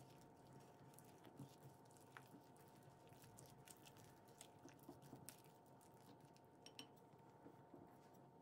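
Faint, irregular soft clicks and scrapes of a silicone spatula stirring flour into a wet dough mixture in a glass bowl.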